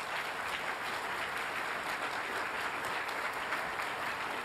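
A large audience applauding: dense, steady clapping of many hands.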